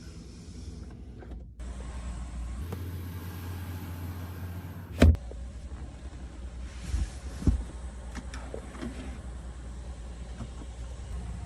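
A vehicle's steady low rumble, with a sharp knock about five seconds in and two smaller knocks a couple of seconds later.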